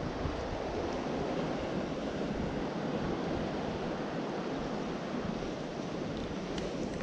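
Steady wind buffeting the microphone over the sound of sea water washing against a concrete pier.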